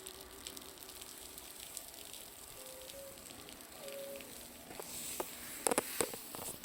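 Irregular crackling ticks from a bonfire, mixed with meltwater dripping off a roof, whose drips sound much like the fire's crackle. A few louder pops come close together near the end.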